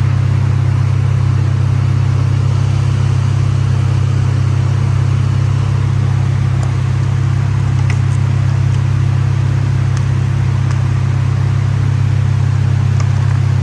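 Infiniti Q50 Red Sport's VR30DDTT twin-turbo V6 running at a steady pitch through AAM Competition 3-inch resonated downpipes and a resonated catback exhaust: a deep, even drone with no revving.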